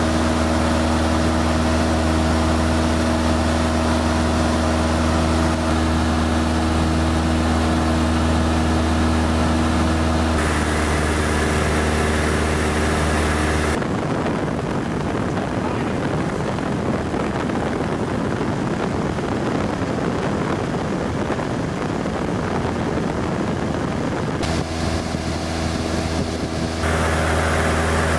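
Cessna 172 floatplane's engine and propeller droning steadily in the cabin in cruise flight. The pitch of the drone shifts about ten and fourteen seconds in; from about fourteen to twenty-four seconds the steady tones give way to an even, unpitched noise, then the drone returns.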